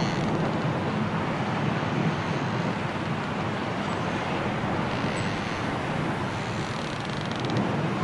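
Snowstorm wind blowing steadily.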